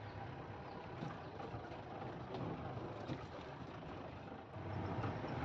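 Safari vehicle driving along a dirt forest track, heard from on board: a steady engine and road noise with light rattles, growing a little louder near the end.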